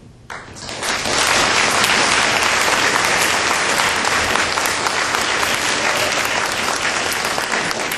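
Audience applauding: clapping starts a moment in, builds within about a second to a dense, steady applause, and begins to thin out near the end.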